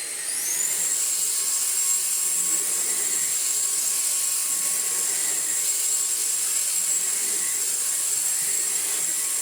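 Numatic Quick NQ100 cordless stick vacuum running on carpet. Its motor spins up with a rising whine just after the start, then runs steadily with a high whine over the rush of air.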